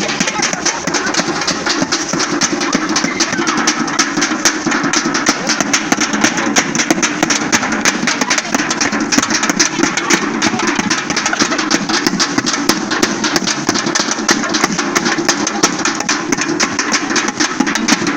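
Street carnival percussion band playing drums in a fast, dense, continuous rhythm.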